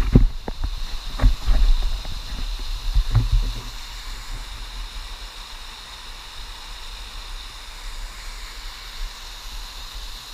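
Steady rush of flowing water, a creek or small waterfall, with several knocks and bumps in the first few seconds.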